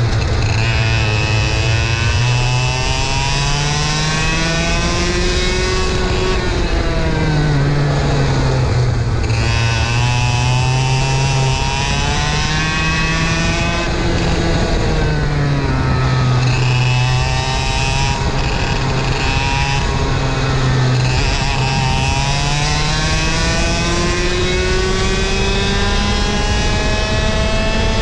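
A 100cc racing kart's two-stroke engine on a fast lap, heard from onboard. Its pitch climbs steadily along the straights and drops back sharply for the corners, several times over.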